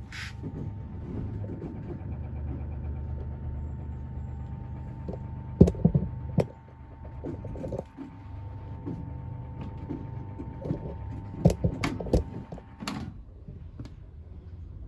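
Indesit condenser tumble dryer running with a steady electric motor hum, broken by several sharp knocks and clunks; the hum cuts off suddenly near the end.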